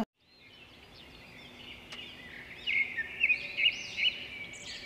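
Small bird chirping and twittering in quick, high, rising and falling notes. It fades in softly and grows louder about two and a half seconds in.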